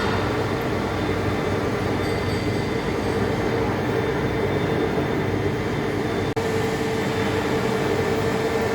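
Heavy-duty lathe turning a large steel part: steady machine noise with a few constant tones held over it, broken by a momentary drop-out about six seconds in.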